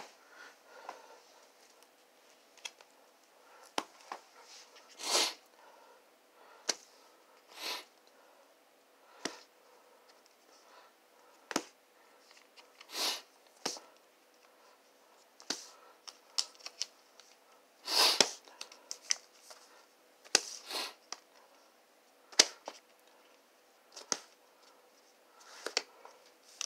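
Vinyl LP jackets in clear plastic sleeves being flipped forward one at a time: a short sliding, rustling swish every second or two.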